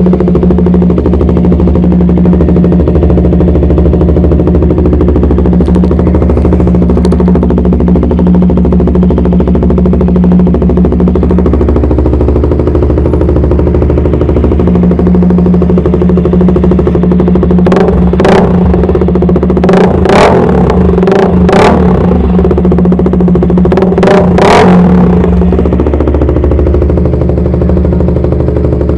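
KTM RC's single-cylinder engine idling loudly through a Yoshimura R-11 slip-on exhaust with a three-hole TOCE end cap. A run of several quick throttle blips comes about two-thirds of the way through, after which it settles back to idle.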